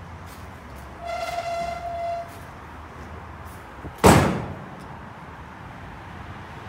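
A long wooden board dropped into a pickup truck's bed, landing with one loud bang and a short ringing decay about four seconds in. Earlier, a steady high-pitched tone sounds for about a second.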